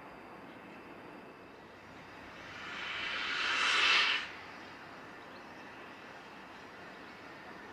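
Steam being let off by a standing steam locomotive: a hiss that swells over about two seconds and stops suddenly.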